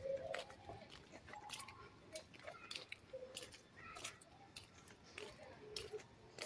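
Footsteps on a block-paved road: faint, irregular scuffs and taps about twice a second.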